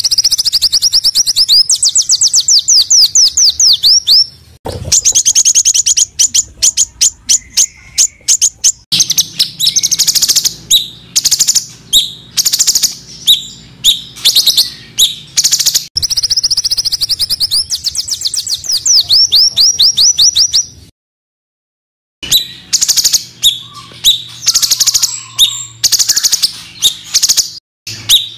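Small songbirds singing fast, harsh runs of sharp, high repeated notes and trills, the rapid-fire 'tembakan' style used as tutor song for caged songbirds. Several recordings are spliced together, with abrupt changes between them and a brief silent break about three quarters of the way through.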